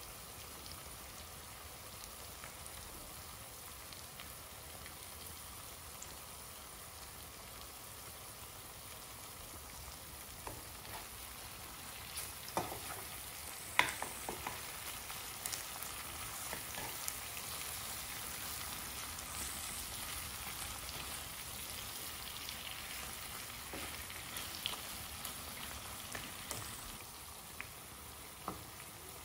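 Food sizzling as it fries in a pan, a steady hiss that grows a little louder about halfway through. Scattered clicks and knocks sound over it, the sharpest about 14 seconds in.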